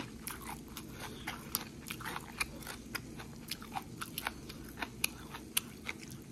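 A person chewing food close to the microphone: irregular wet mouth clicks and small crunches, a few each second.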